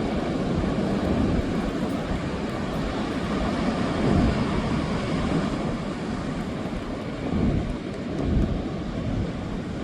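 Wind buffeting the microphone: a steady low rushing noise that swells in gusts about four seconds in and again near the end.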